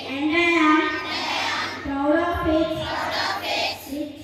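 A group of children reciting a pledge together in unison, in a chanting, sing-song cadence, phrase by phrase with short pauses between phrases.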